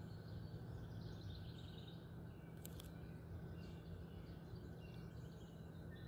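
Faint steady background noise with small birds chirping now and then, and a brief click about two and a half seconds in.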